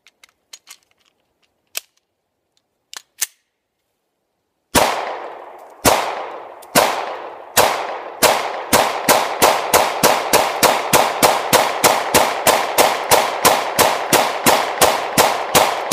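9mm Glock 19 pistol firing: after a few faint clicks, a string of shots starts about five seconds in, the first few about a second apart, then quickening to a rapid, steady volley of roughly two or more shots a second, each with a short echo.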